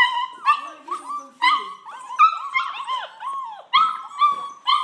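Several border collie puppies whining and yipping, a quick run of short high-pitched cries, about two a second, some overlapping.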